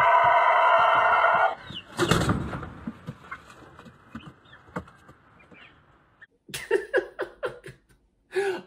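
A rooster holds one very long crow that cuts off about a second and a half in. A brief thump and flapping follow as the bird collapses, fainting from crowing too long.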